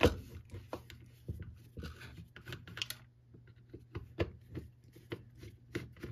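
Scattered clicks and taps of hands and a screwdriver handling the plastic recoil starter housing of a Troy-Bilt TB22EC string trimmer, the sharpest click right at the start.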